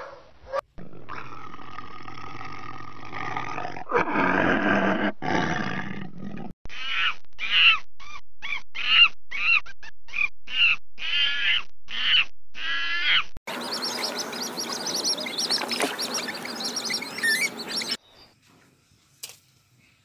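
A string of animal calls. First comes a rough call lasting about five seconds. Then a long-tailed macaque gives about ten short, high calls that rise and fall, followed by a harsh, hissy stretch of about four seconds that stops abruptly, leaving near quiet.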